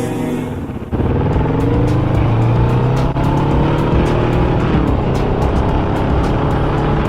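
Music cuts off about a second in, and a motorcycle engine takes over, pulling hard with its pitch climbing, then dropping at a gear change about five seconds in, over steady wind rush.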